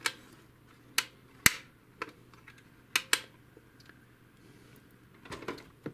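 A handful of sharp plastic clicks and taps, irregularly spaced with the loudest about a second and a half in, from the opened-up HP DeskJet 2130 printer's paper-feed parts being pressed and moved by hand.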